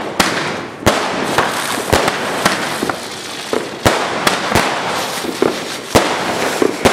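Fireworks going off: sharp bangs of aerial shells and firecrackers at irregular intervals, about one every second, over a steady crackle of many more fireworks.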